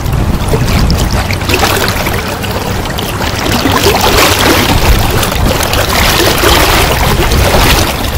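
River water rushing and splashing close to the microphone, with wind buffeting it as a low rumble; the noise grows fuller about halfway through.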